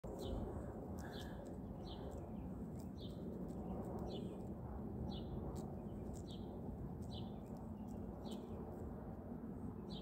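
A small bird chirping steadily, one short high call about once a second, over a steady low background noise, with faint sharp clicks scattered through.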